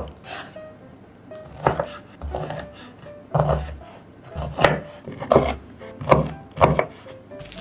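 Kitchen knife slicing small red chillies on a bamboo cutting board: about a dozen sharp, uneven knocks of the blade hitting the board.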